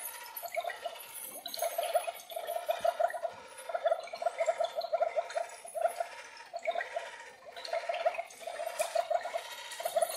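Light-up skeleton-fish aquarium Halloween prop playing a recorded bubbling-water sound effect. The sound comes in repeated bursts of rapid pulses, each about a second long, with short breaks between them.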